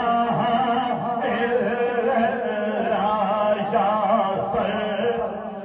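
A man's voice singing a devotional chant through a microphone and loudspeakers, in long wavering notes that fade out near the end.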